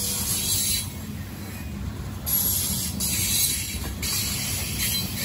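Coal train's aluminum gondola cars rolling past close by: a steady rumble of steel wheels on rail, with a hiss that swells and fades several times.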